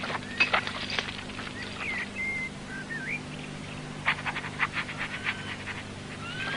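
A large dog panting in two runs of quick breaths, near the start and again about four seconds in, with birds chirping and whistling in between over a low steady hum.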